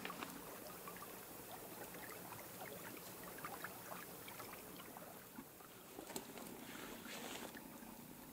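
Faint ambience of a small campfire crackling, with many small scattered ticks over a soft steady hiss.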